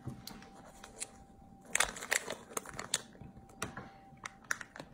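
Clear plastic bag of peeled black garlic crinkling as it is opened and handled: irregular crackles, bunched about two seconds in and again near the end.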